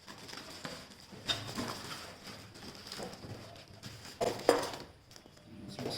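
Spray gun parts and accessories being handled and set down on a surface during unboxing: irregular small knocks, clicks and rustles, the loudest clunk about four and a half seconds in.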